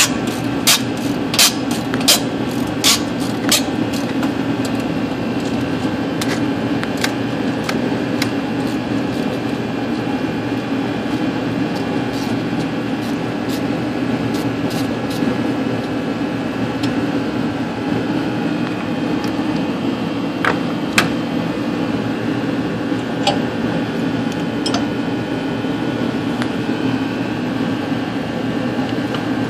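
Sharp metallic clicks and taps of hand tools at the turbocharger, about six in quick succession at the start and a few scattered ones later, over a loud, steady mechanical drone.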